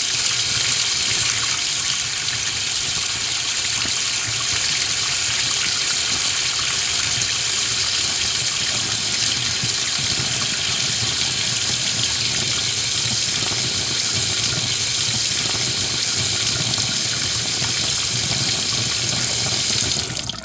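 Steady rush of running water, holding even throughout and then falling away quickly at the very end.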